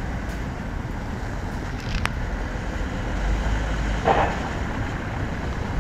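Steady low rumble of distant road traffic, with a brief higher-pitched sound just after four seconds in.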